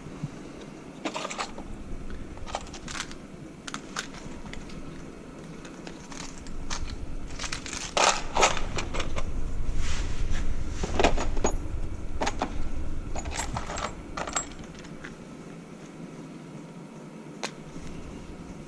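Metal parts and tools clinking and knocking during the repair of a dry rotary-vane vacuum pump: scattered sharp clicks and clanks, busiest in the middle, over a low rumble of handling.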